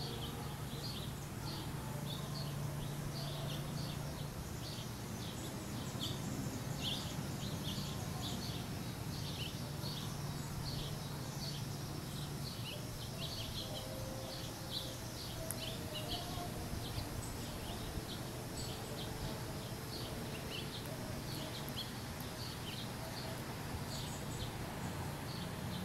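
Small birds chirping busily in the background, a dense run of short high chirps, over steady outdoor background noise with a low hum that stops about halfway through.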